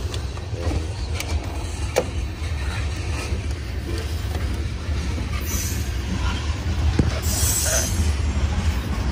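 Hand work on a Jeep engine's air intake: a screwdriver loosening the intake tube clamp and the rubber intake duct being pulled aside. There are sharp clicks about two and seven seconds in and rustling around the middle, over a steady low rumble.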